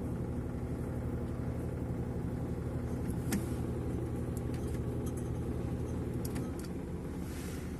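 Top-load washing machine's drive motor and transmission running, heard from underneath as a steady low hum that drops off about six seconds in. The clutch dog is not seating properly in the upper pinion of the transmission and rubs against it.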